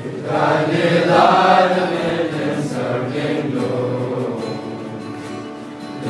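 Chorus of boys' voices reciting a prayer together in unison, in a steady chant-like drone.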